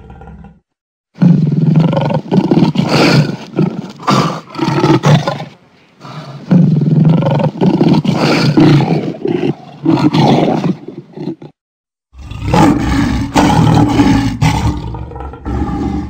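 Lion roaring: three long bouts of deep roars and grunts separated by brief pauses, the first beginning about a second in.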